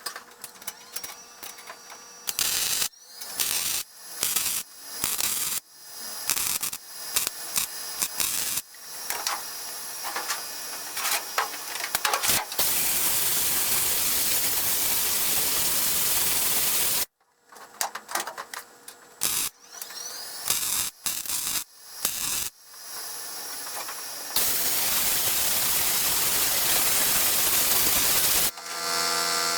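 Welding on car body sheet metal: a crackling, hissing arc struck in a run of short stop-start tacks, with two longer runs of several seconds each. Near the end a power tool's motor starts up and runs steadily.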